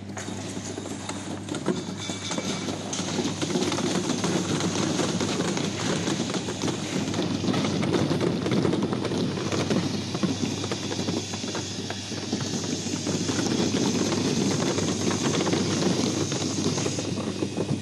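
Olive size-grading machine running: olives clattering on its turning stainless-steel roller bed in a dense, continuous rattle over the steady hum of its electric drive. The rattle grows louder about three to four seconds in as more olives feed through.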